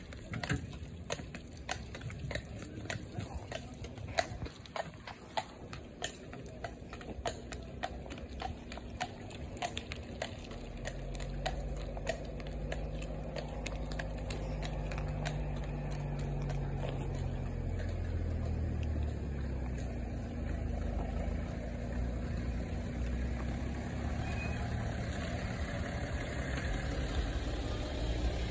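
A horse's hooves clip-clop on wet tarmac as a horse-drawn carriage pulls away, the clops growing fainter. From about ten seconds in, a car's engine and tyres on the wet road rise to a steady rumble as the car comes up close.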